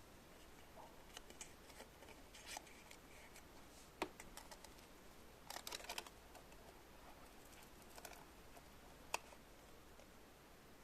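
Faint, scattered small clicks and taps over quiet room tone, with a sharp click about four seconds in, a quick run of clicks around six seconds, and another sharp click near nine seconds.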